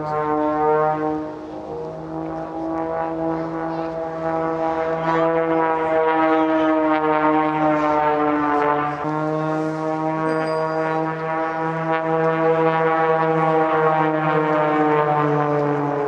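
Aerobatic biplane's piston engine and propeller at high power: one steady droning note whose pitch drifts slowly up and down as the plane dives and passes low.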